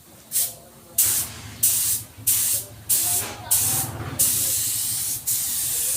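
Spray painting a car bumper: a spray gun hissing in short passes about once a second, then a longer steady pass from just past the middle.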